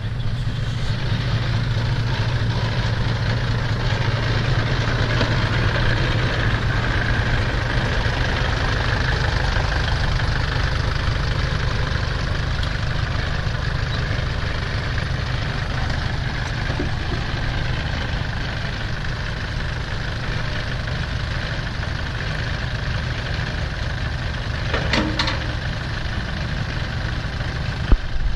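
Diesel engines of a Kubota tractor and a six-wheel dump truck running steadily while the tractor tows the truck, which is stuck in mud. Near the end there is a brief metallic clank.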